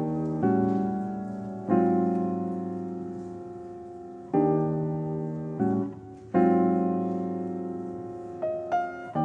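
Slow piano music: chords struck every second or two and left to ring and fade, with a few higher notes near the end.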